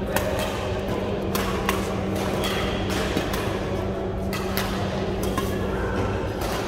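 Badminton rackets hitting shuttlecocks: about ten sharp, irregularly spaced pops from rallies on this and neighbouring courts. A steady low hum runs underneath.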